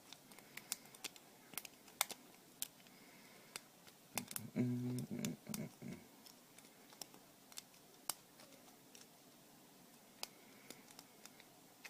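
Irregular small metallic clicks of a lock pick scraping and raking across the pin tumblers of a cheap shutter bolt padlock. A short low hum comes about four and a half seconds in.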